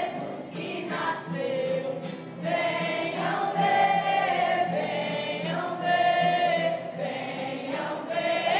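A choir singing a slow song in long held notes over a steady accompaniment.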